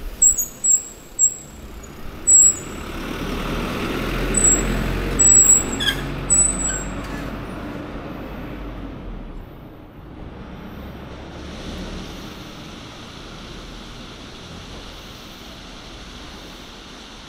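Bicycle brakes squealing in short, high-pitched bursts, about eight times over the first seven seconds, as the bike slows to a stop. Under them a vehicle passes, and then a quieter, steady street-traffic hiss continues while the bike stands still.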